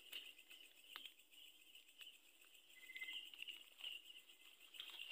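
Faint, steady high-pitched chorus of night insects, with a few soft clicks.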